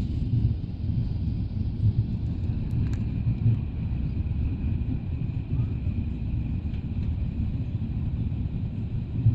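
Jet airliner cabin noise during the climb after takeoff: a steady low rumble of the engines and airflow heard from inside the cabin, with a faint thin whine above it.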